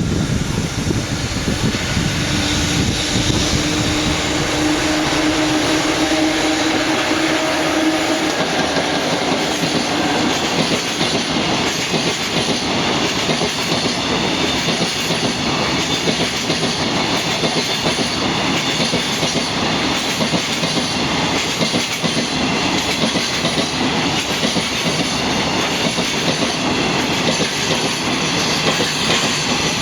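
Freight train passing close by, its long string of wagons rolling steadily over the rails. A steady tone sounds for several seconds near the start, then fades into the running noise.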